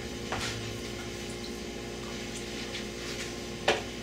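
Steady room hum, with faint handling noises and one sharp knock near the end as something is set down or picked up on a kitchen counter.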